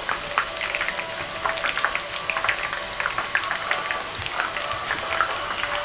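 Onion pakoras deep-frying in a wok of hot ghee, partway through frying: a steady bubbling sizzle thick with small crackles and pops.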